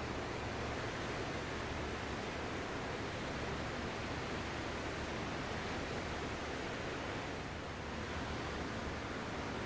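Ocean surf: a steady, continuous wash of waves with no distinct breakers, easing slightly for a moment about three quarters of the way through.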